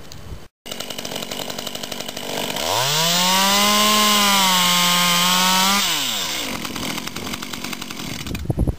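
Stihl chainsaw with a freshly sharpened chain idling, then revved up about two and a half seconds in and cutting through a branch for about three seconds, its pitch sagging slightly during the cut, before dropping back to a ticking idle.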